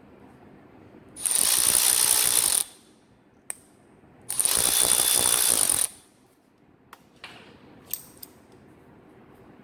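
Milwaukee M12 Fuel 3/8-inch cordless ratchet running in two bursts of about a second and a half each, its motor giving a steady high whine. A few short clicks and light knocks come between the bursts and after them.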